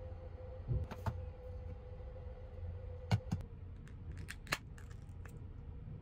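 Several light clicks and knocks of a boxed meal and an aluminium beer can being handled, over the low steady rumble of a moving sleeper-train car.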